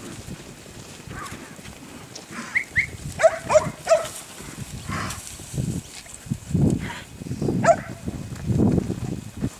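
A working dog barking in short, scattered bursts at a mob of cattle, with several deeper, half-second sounds in the second half.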